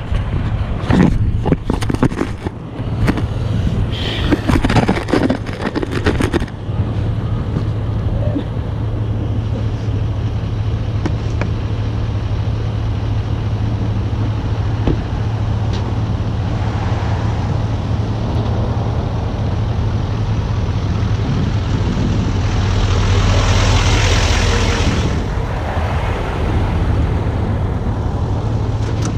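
2019 Duramax L5P 6.6-litre V8 turbo-diesel idling with a steady low drone, while the camera is knocked and scraped against the pavement for the first six seconds. Later the truck pulls away, its engine noise swelling loudest about three quarters of the way through before easing off.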